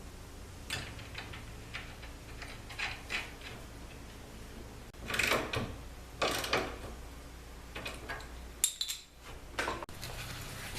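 Hand work on the kayak hoist's metal hardware: scattered light clicks and scrapes, as nylon lock nuts are fitted onto the mounting bolts. Two louder scraping, rustling stretches come about five and six seconds in, and a few sharp clicks near the end, over a low steady hum.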